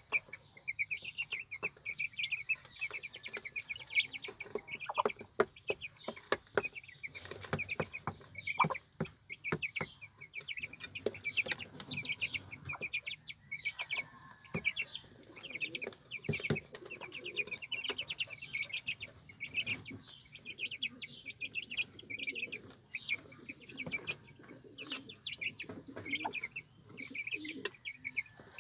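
Young chicks peeping almost without pause in fast, high cheeps, while a Herati hen clucks low among them. Sharp taps scattered throughout are beaks pecking at feed on a concrete floor.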